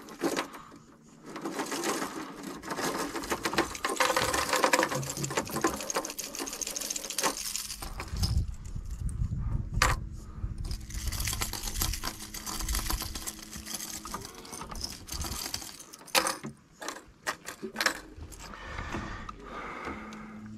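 Fishing reel being cranked to retrieve a lure, a fast whirring clicking in two long stretches, with a single sharp click about ten seconds in.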